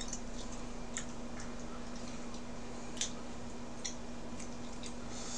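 Scattered light clicks and taps of chopsticks against dishes during eating, irregular, roughly one a second, the sharpest about three seconds in, over a steady low hum.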